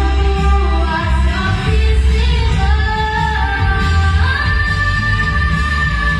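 An 11-year-old girl singing solo into a microphone over a pop backing track with a strong bass line. About four seconds in she slides up into a long held note.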